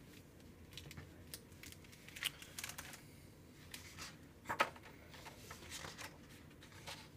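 Pages of a hardcover picture book being turned by hand: paper rustling with light clicks and flaps as the cover and pages turn over, the loudest about four and a half seconds in.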